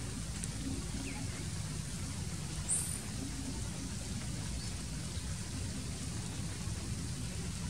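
Steady low outdoor rumble, with faint high chirps about a second in and one brief high chirp a little before the middle.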